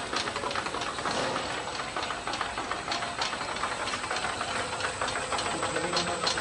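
Mini Press II rotary tablet press running: a steady mechanical clatter with rapid, irregular clicking over its drive noise.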